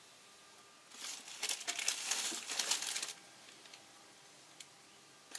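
Crinkling rustle of a white stuff sack or bag squeezed and handled in the hands, for about two seconds starting a second in.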